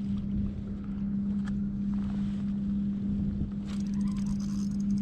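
Wind rumbling on the microphone over a steady low hum, with a few faint clicks about four seconds in.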